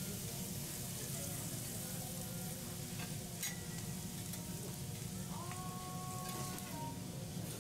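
Food sizzling in hot oil on a teppanyaki griddle, a steady hiss, with a sharp click about three and a half seconds in.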